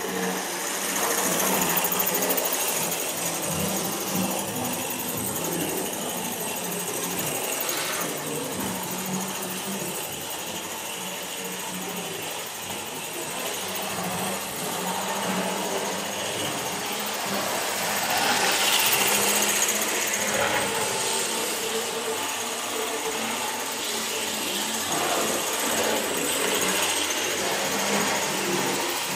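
Model railway trains running on a non-digital DC layout, a model Hymek diesel locomotive hauling tank wagons among them: a steady whir of small electric loco motors with the noise of wheels running on the track.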